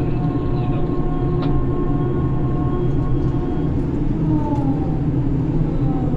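Grab crane machinery running, heard from inside the operator's cabin: a steady low drone with a whine that falls in pitch from about four seconds in, and a single click about a second and a half in.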